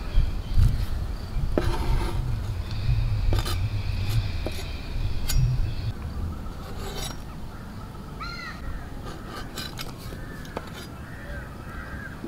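A steel cleaver scraping and knocking on a wooden board as chopped vegetables are pushed off into a clay pot, with a low rumble underneath. From about eight seconds in, birds are calling.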